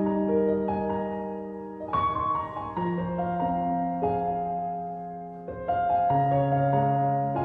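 Slow, gentle piano music, with soft chords struck every second or two and left to ring.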